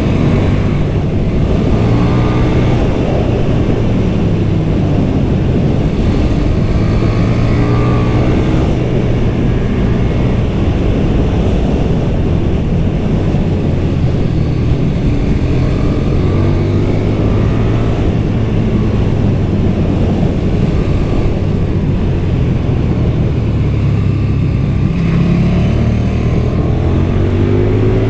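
KTM 1290 Super Duke R's V-twin engine running through stock exhaust under hard riding: the revs climb several times as it accelerates and drop away in between.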